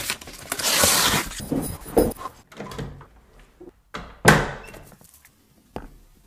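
Interior door swinging and shutting: two swishing sweeps, a knock about two seconds in, then a loud slam a little after four seconds that rings briefly, with a small click near the end.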